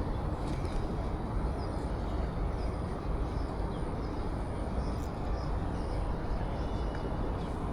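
Steady low rumbling outdoor noise with no clear rhythm or pitch, with a few faint, short high chirps scattered through it.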